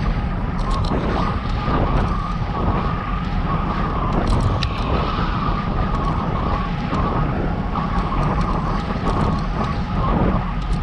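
Wind rushing and buffeting over the microphone of a camera on a moving bicycle, with a steady higher whine running through it.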